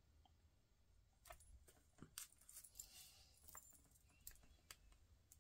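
Faint, scattered small clicks and clinks as embellishments are pressed onto a paper card with a beaded pick-up pen, starting about a second in.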